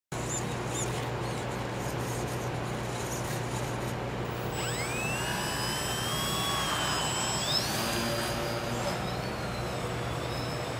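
Electric motor and propeller of a small foam RC stunt plane spooling up with a rising whine about halfway through, then climbing higher near the end as the throttle comes up for takeoff. A steady low hum lies underneath.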